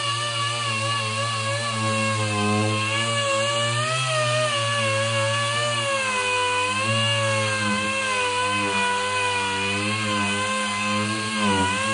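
Electric power tool motor running continuously, its pitch wavering slightly as it is pressed into the wood, with a brief dip near the end.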